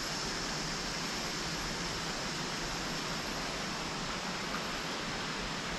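Steady, even rushing hiss of forest background ambience, with no distinct calls or knocks.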